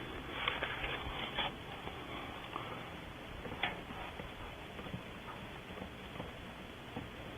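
Scattered clicks, taps and rustles of hands working close to the nest-box microphone, with a cluster of clicks in the first second and a half and a sharp tap about three and a half seconds in.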